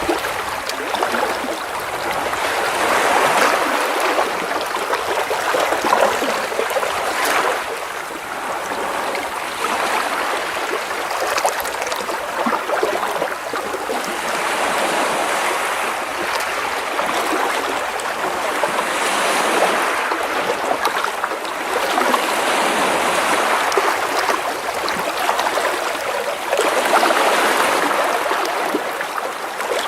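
Small sea waves washing and splashing against rocks close by, a continuous rush of water that swells and ebbs every few seconds, with short splashes and trickles as the water drains back off the stones.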